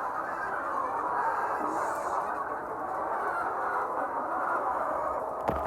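A flock of layer hens clucking and chattering all at once, many calls overlapping in a steady din, with a single sharp click near the end.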